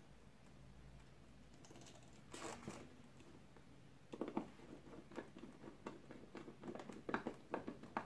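Faint handling noises of a lamp socket and its wiring being fitted: a brief rustle, then from about four seconds in a run of irregular light clicks and taps.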